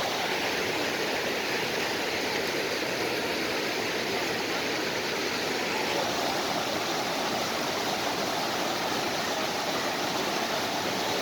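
A steady, even rushing noise, like running water, unbroken and unchanging in level.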